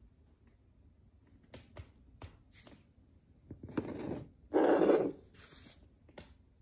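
A drinking glass of water shifted and slid across a wooden floor: a few light taps, then a short scrape about four seconds in and a louder scrape lasting about half a second just after.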